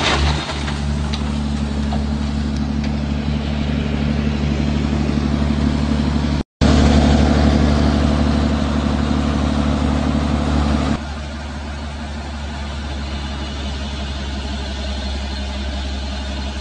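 Heavy diesel engine running steadily at a constant low pitch, broken by a brief dropout about six and a half seconds in. About eleven seconds in it changes and becomes quieter.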